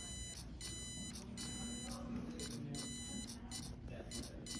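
Electronic buzzer beeping Morse code in a run of short and long beeps, dots and dashes, at one high pitch. A low steady hum runs underneath.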